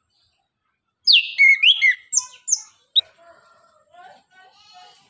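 Chestnut-capped thrush (anis kembang) singing. About a second in comes a run of loud, clear whistled notes sliding down in pitch, then one sharp note, then softer scratchy twittering near the end.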